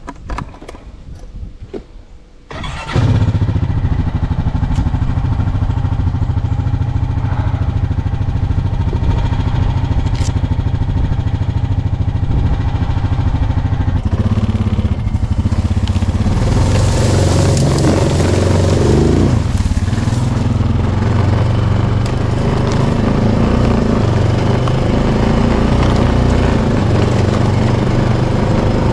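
Four-wheeler (ATV) engine that comes in abruptly about three seconds in and then runs steadily, with a brief rise in pitch a little past the middle.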